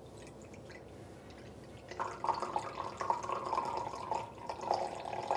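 Soy sauce pouring in a thin stream from its bottle into a glass measuring cup, trickling and splashing into the liquid already there; it becomes audible about two seconds in.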